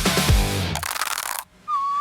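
Music: the band's drum-and-guitar beat stops under a fading cymbal wash about three-quarters of a second in. After a brief gap, one high held note starts near the end.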